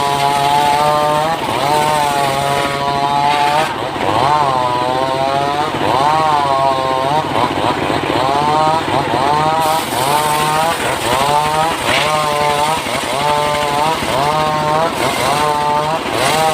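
Engine-driven wood saw running under load while cutting mahogany timber. The engine note repeatedly dips and climbs back, about once a second, as the cut loads and frees the engine.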